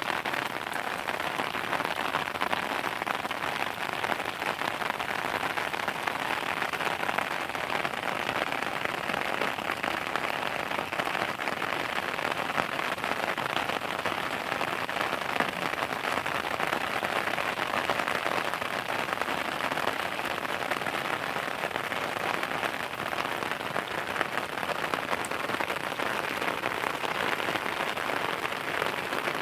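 Steady rain falling and pattering on a surface, a dense hiss of many small drop impacts.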